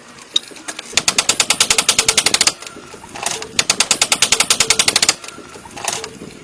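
A woodworking power tool striking rapidly, about ten sharp impacts a second, in two bursts: one about a second and a half long, then after a short pause one about two seconds long.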